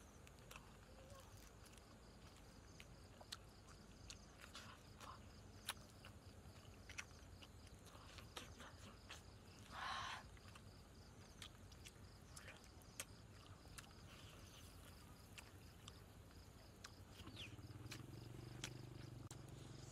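Quiet eating: soft scattered clicks and crunches of chewing and biting into grilled fish, with one louder crunch or tear about halfway through. A faint steady insect drone sits behind it, and a low hum comes in near the end.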